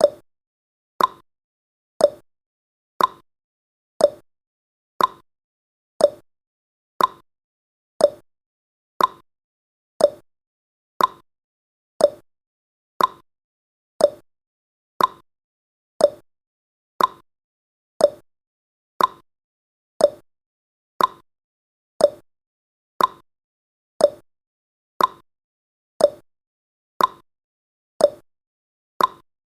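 Countdown timer's tick sound effect: a short, sharp tick once every second, steady and evenly spaced.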